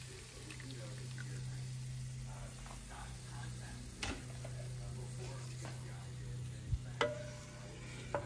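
Pan sauce with fresh lemon juice sizzling and bubbling in a hot frying pan, a wooden spatula stirring and knocking against the pan a few times, over a steady low hum.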